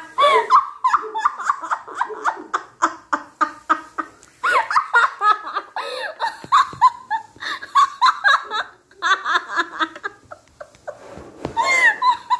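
Two women laughing hard: a long run of quick, pulsing laughs that pauses briefly about four and nine seconds in.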